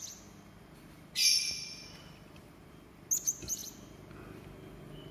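Serindit (hanging parrot) giving sharp, harsh high calls: one loud call about a second in, then a quick run of three or four short notes about three seconds in.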